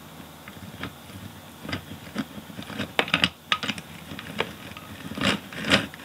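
A drill bit boring a hole through a paper knife blade, making irregular crackling clicks and scraping strokes that come thicker and louder in the second half, with no motor hum.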